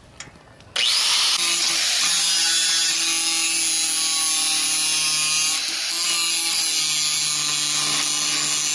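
Electric angle grinder starting about a second in and then grinding steadily on steel, taking old weld slag off a seat frame. The motor's hum dips slightly in pitch as it bears into the metal.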